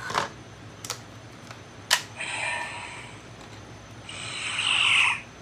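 Plastic toy morpher being handled as a Power Coin is pushed in and twisted: a few sharp plastic clicks, the sharpest about two seconds in, then two scraping, ratchet-like rasps, the second longer and louder, ending about five seconds in.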